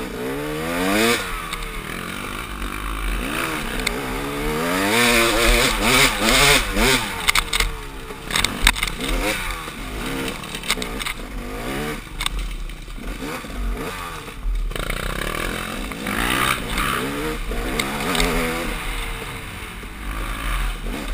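KTM dirt bike engine revving up and falling back again and again as the throttle is worked, with rattles and clatter from the bike over rough ground and wind buffeting the helmet microphone.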